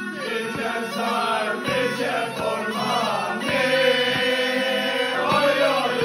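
Group of men singing a Turkish Black Sea folk song together in unison, accompanied by a tulum (Black Sea bagpipe) and a guitar.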